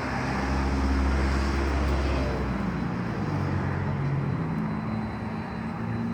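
Street traffic: a heavy road vehicle's engine rumbling, with a deep rumble that is loudest in the first two seconds or so, then a steadier engine hum.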